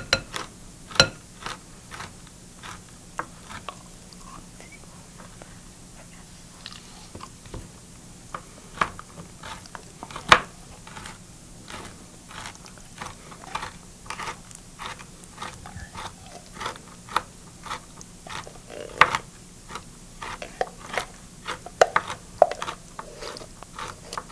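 Knife chopping walnuts on a cutting board: irregular crunching taps, along with a spoon scraping pumpkin out of a metal can.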